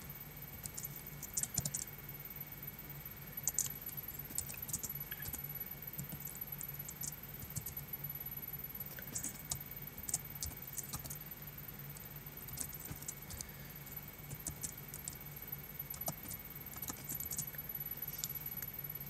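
Computer keyboard being typed on: sharp keystroke clicks in irregular short runs with pauses between, over a steady low hum.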